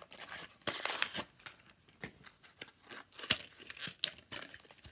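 Hot Wheels card-and-blister packaging being torn open and crinkled by hand: a longer rip about a second in, then scattered sharp crackles.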